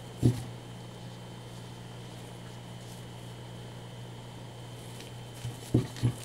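Dull, muffled thumps as a clear glass candle plate is handled over a burlap-covered surface: one just after the start and three in quick succession near the end. A steady low electrical hum with a faint high whine runs underneath.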